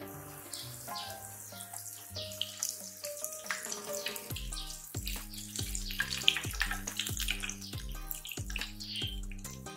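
Battered Korean corn dog deep-frying in hot oil: a steady crackling sizzle of bubbling oil, under background music that takes on a regular bass beat about four seconds in.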